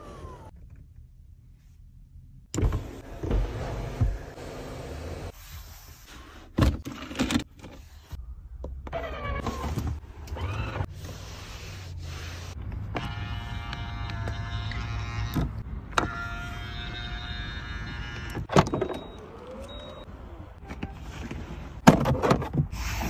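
Electric motors of a NIO ES8's power-operated interior features whirring in a series of short runs, with clicks and knocks between them. About 13 to 18 seconds in, a steady motor whine holds several even tones, and a sharp click comes near the end.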